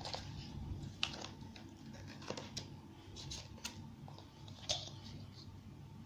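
Faint scattered clicks and light rustling of a cardboard pull-tab sliding through a children's board book as the book is handled.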